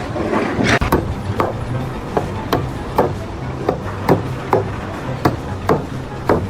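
A series of sharp knocks, roughly two a second and unevenly spaced, over a steady low hum.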